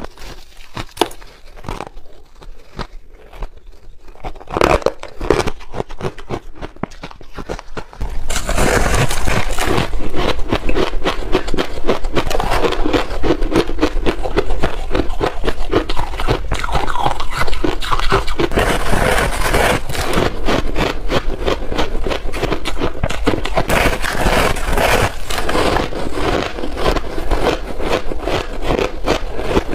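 Refrozen powdery ice being bitten and chewed, a dense run of crunches. Quieter scattered crackles for the first eight seconds, then much louder, continuous crunching.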